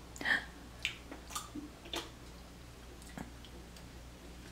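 Mouth sounds of a person tasting food off a spatula: a smack about a quarter-second in, then a few faint clicks of chewing.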